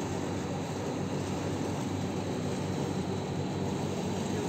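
Passenger ship Tomaj's engines running as it pulls away from the harbour: a steady low drone under an even hiss.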